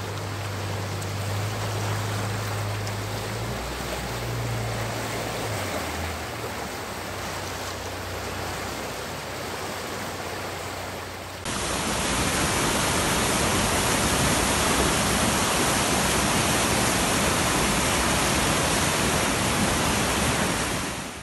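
Floodwater rushing and churning down a walled river channel, the river in spate after heavy rain. About eleven seconds in it cuts to a louder, fuller rush of water.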